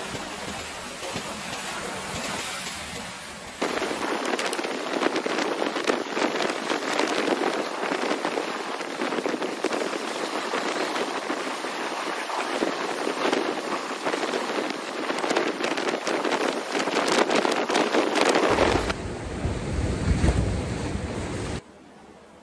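Choppy sea waves breaking and splashing over rocks, a dense hiss of churning white water that gets louder a few seconds in. Near the end wind rumbles on the microphone, then the sound drops away suddenly.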